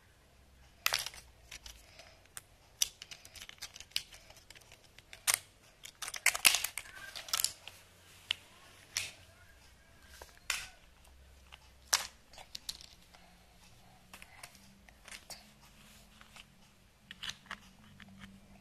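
Irregular plastic clicks and clacks from the parts of a take-apart toy fire truck being handled and pulled apart, busiest about six to seven and a half seconds in.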